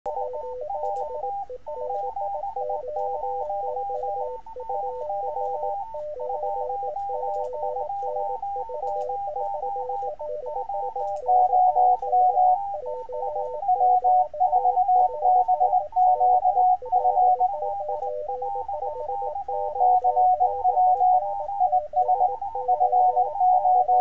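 Several Morse code (CW) tones keyed at once at about 500, 600, 800 and 900 Hz, heard through a homebrew resonant bandpass speaker built from a small speaker in a shampoo bottle. From about 11 seconds in, a computer-sent CW signal at 735 Hz joins and stands out much louder than the others, the pitch the resonant speaker is meant to favour.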